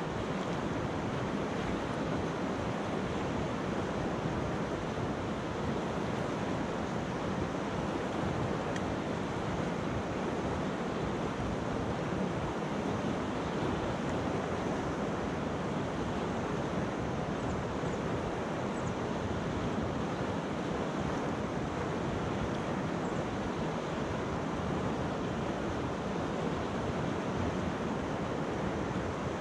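Clear mountain river rushing steadily over stones and pebbles, a constant, even wash of water.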